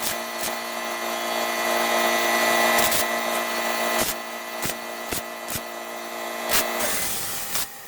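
A small motorised shop tool running with a steady hum, with irregular sharp clicks over it. It cuts off about seven seconds in.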